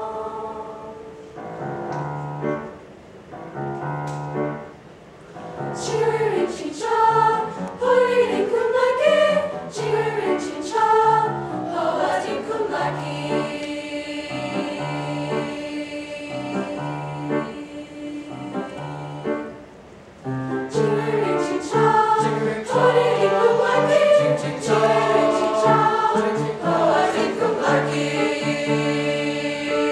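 Eighth-grade mixed-voice choir singing, boys and girls together. It starts softly, swells fuller about six seconds in, drops briefly around twenty seconds, then builds again.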